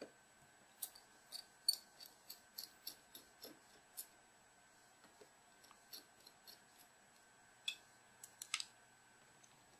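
Light, sharp clicks and ticks of a precision screwdriver working the tiny screws out of a Samsung GT-S7560 phone's plastic rear frame. A dense run comes in the first few seconds, then a few more clicks near the end as the frame is handled.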